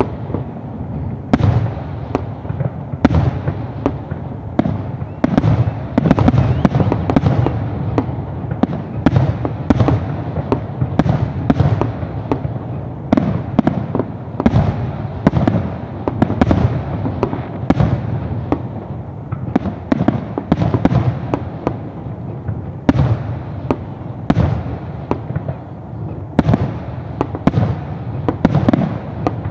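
Aerial fireworks shells bursting in quick succession: sharp bangs about every second or so over a continuous low rumble.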